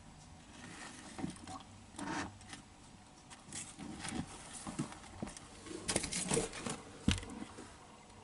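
Scattered light taps, clicks and scratches of feeding tweezers and leopard geckos' feet on a plastic tub, with a busier patch of rustling about six seconds in and a sharper knock just after seven seconds.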